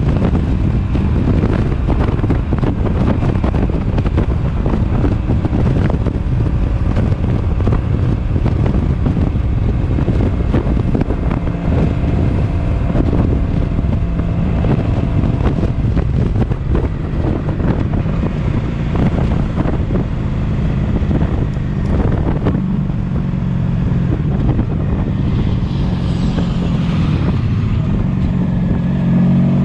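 Heavy wind buffeting the microphone over the steady drone of a 1983 Honda Sabre 750's V4 engine at highway speed. The engine note stands out more clearly in the last several seconds and begins to rise in pitch right at the end as the bike is revved.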